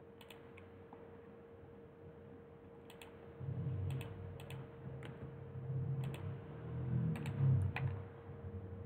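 Scattered computer keyboard keystrokes and mouse clicks, a few at a time, over a faint steady hum. A low rumble comes in about three and a half seconds in and carries on under the clicks.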